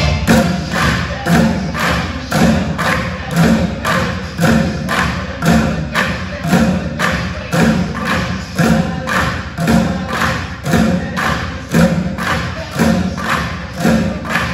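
A group playing plastic buckets with drumsticks in a steady, driving rhythm. Quick, sharp stick strikes run under deeper hits that come about every two-thirds of a second.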